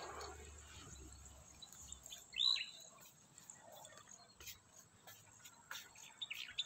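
Insects calling steadily at a high pitch, with a single quick bird chirp about two and a half seconds in and a few faint clicks.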